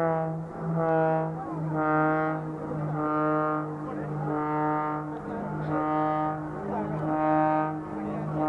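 Pitts Special aerobatic biplane's engine and propeller droning at one steady pitch, swelling and fading about once a second as the plane rolls through a corkscrew.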